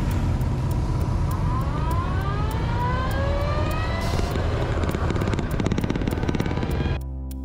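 Motorcycle engine running under way with wind noise, its pitch rising steadily for about three seconds as it accelerates, then holding steady. Near the end the riding sound cuts off and music starts.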